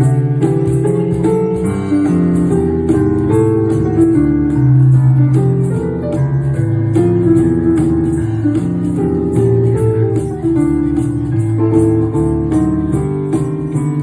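Live instrumental music: an electronic keyboard plays melody and chords with a small band, over a bass line and a steady light percussion tick about three times a second.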